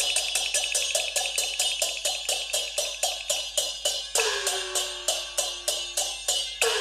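Cantonese opera percussion playing an even beat of sharp wooden clapper and cymbal strokes, about four a second, to accompany stage movement. About four seconds in, and again near the end, a gong is struck and its pitch falls as it rings.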